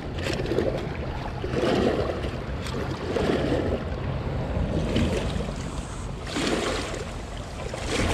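Wind rumbling on the microphone, with small lake waves washing and lapping against shoreline rocks in irregular swells.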